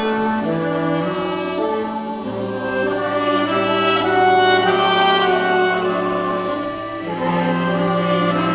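Mixed choir singing sustained chords with a saxophone ensemble accompanying. A long low held note comes in about two seconds in and stays under the changing upper parts.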